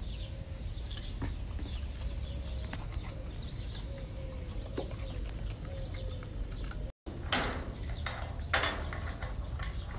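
Patas monkey chewing pieces of red bell pepper: scattered small crunches and clicks over a steady low rumble, with two louder crunchy crackles just after a brief drop to silence about seven seconds in.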